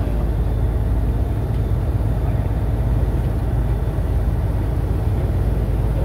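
A passenger boat's engine running with a steady low drone, under the rushing of its wake along the hull.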